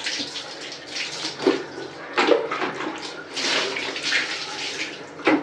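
Water poured from a plastic mug over a wet puppy, splashing onto a tiled bathroom floor in several separate pours, the longest lasting about a second partway through.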